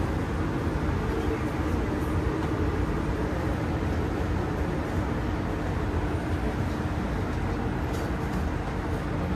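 Steady rumble and hum inside a Singapore MRT train carriage on the Thomson-East Coast Line, with a steady tone setting in about a second in and holding on.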